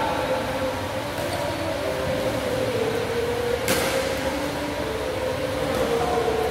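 Steady mechanical hum with a slowly wavering tone, with one sharp crack a little past halfway.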